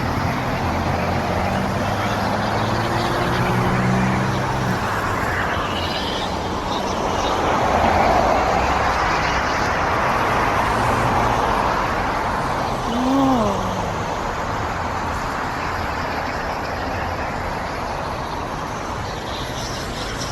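Steady road traffic noise that swells and fades about eight to eleven seconds in, with a brief rising-and-falling tone about thirteen seconds in.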